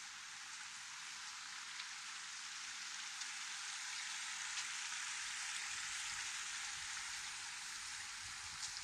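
Small forest creek trickling over rocks, a steady hiss that grows louder in the middle and eases off again.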